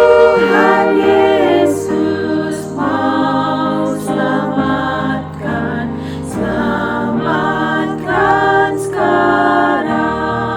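Vocal group singing a hymn in several-part harmony, the voices moving together from phrase to phrase.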